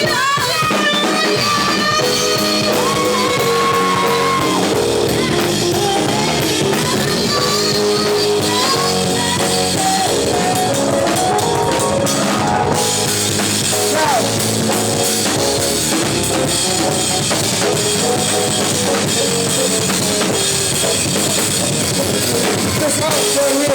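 Live band playing a rock-leaning groove with a steady drum-kit beat and bass drum, with sustained melodic notes on top.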